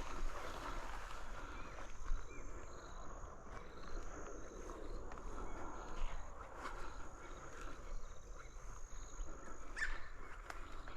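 Quiet bush ambience: faint rustling and small clicks close by, with short, thin high calls repeating in the background.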